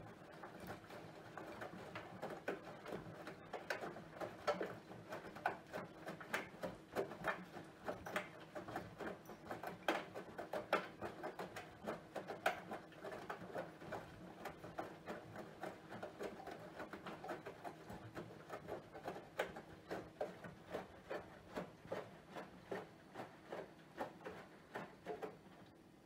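Bosch Serie 4 VarioPerfect washing machine (EcoSilence Drive) turning its drum during the main wash: water sloshing and patting against the door glass in soft irregular splashes over a steady low motor hum. The drum stops near the end.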